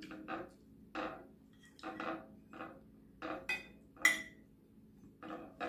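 Eating soup: a metal spoon clinking and scraping against a ceramic bowl, mixed with sipping and chewing sounds, a short sound every half second to second. There is a sharper ringing clink about four seconds in.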